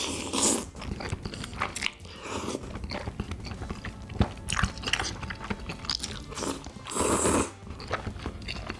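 Close-miked eating: a person slurping long sauce-coated noodles and chewing, with wet smacking and clicking mouth sounds. Two loud slurps stand out, one right at the start and one about seven seconds in.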